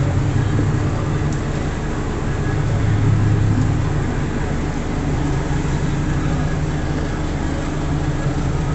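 Police patrol boat's engines running steadily under way while manoeuvring, a low, even drone that swells a little about three seconds in.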